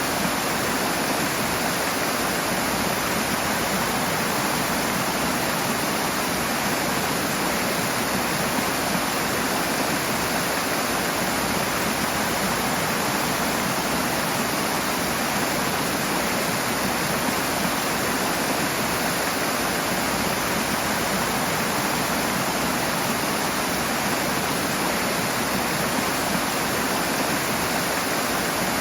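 Rushing water: a fast stream or small waterfall running in a steady, unbroken rush.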